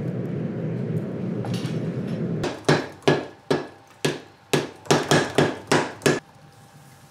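Steady rumble of a charcoal forge fire, then about ten ringing hammer blows on red-hot steel at the anvil over some three and a half seconds, unevenly spaced.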